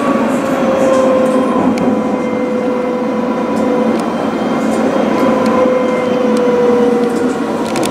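Running noise of a tram heard from inside: a steady rumble of wheels on rail, with a motor whine that sags slightly in pitch and picks up again.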